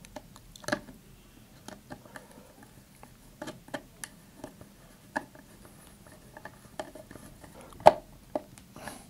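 A brass threaded insert being driven into a wooden bulkhead with a flat-blade screwdriver: scattered small, irregular clicks and scrapes as the tool turns and shifts, with one sharper knock near the end.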